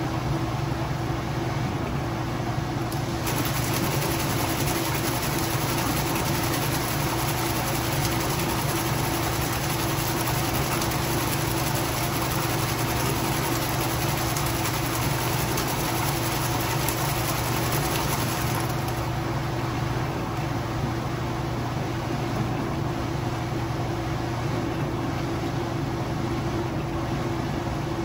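Kenmore Ultra Fabric Care top-load washing machine running, a steady motor hum with a brighter hiss that comes in about three seconds in and drops away after about fifteen seconds.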